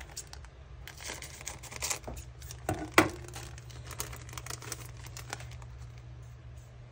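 Clear plastic packaging being handled and opened to take out thin metal craft dies: irregular crinkling and rustling, with a sharp tap about three seconds in.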